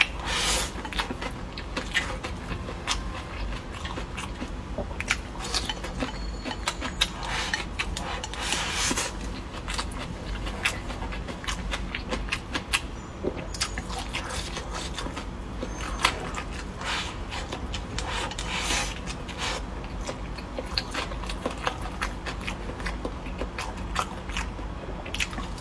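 Close-up eating sounds: rice and meat being chewed with smacking mouth noises, and chopsticks clicking and scraping against the bowl as food is shoveled in.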